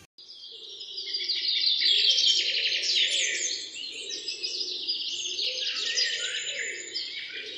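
Many small birds chirping and twittering at once, a dense chorus of quick overlapping chirps.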